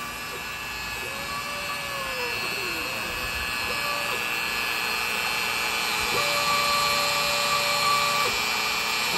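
Hobby CNC router carving a shallow pattern in a wooden board at a slow feed: the router motor runs with a steady high whine. Over it the machine's stepper motors sing in tones that rise and fall as the gantry moves, then hold one level note for about two seconds near the end.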